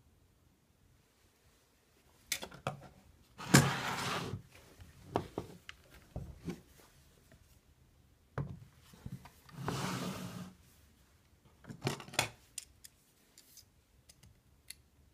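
Handling noise from a heavy metal lathe height support and a digital caliper: knocks and clicks as the block is picked up, turned over and set down, with two scraping slides of just under a second each.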